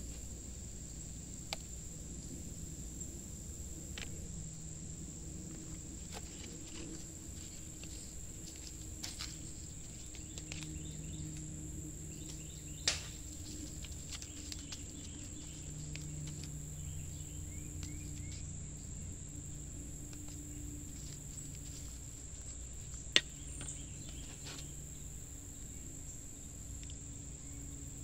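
Steady high-pitched insect chirring over a low background hum, broken by a few sharp clicks and taps of a plastic spoon and nursery pots as potting soil is scooped in.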